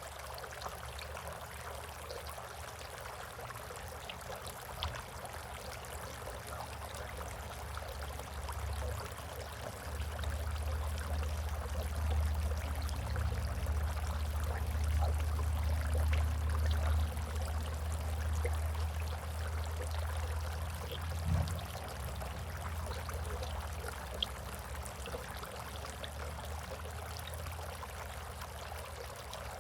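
Water trickling steadily in a bird bath. A low rumble swells from about ten seconds in and fades again a little after twenty seconds.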